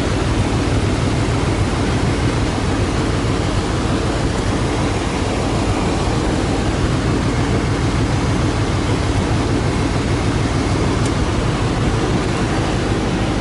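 Vehicle driving steadily: a constant engine drone under wind and road noise.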